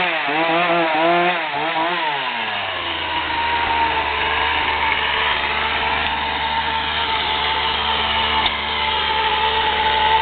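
Poulan 18-inch two-stroke chainsaw blipped up and down several times, then settling to a steady even run after about two and a half seconds. It is being run to check that it still works.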